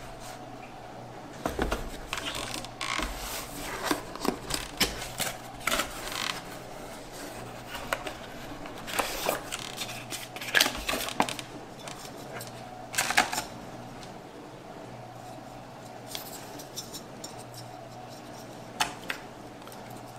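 Unboxing handling noises: a cardboard box and plastic packaging rustling and scraping, with irregular clicks and light clatters as a CPU cooler's heatsink is lifted out and handled. It is busiest in bursts, then quieter toward the end.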